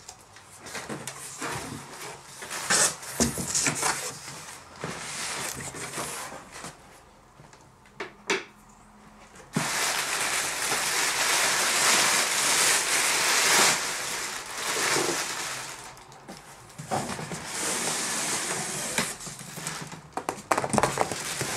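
Plastic air-cushion packing rustling and crinkling as it is pulled out of a cardboard shipping carton, with cardboard scraping and knocks as a boxed CD player is lifted out. The rustling turns louder and continuous from about halfway through, with a few sharp knocks near the end.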